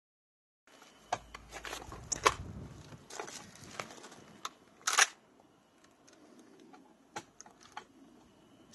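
Metallic clicks and clanks of a Desert Tech MDR rifle being worked by hand to clear a jam. The two loudest clacks come about two and five seconds in.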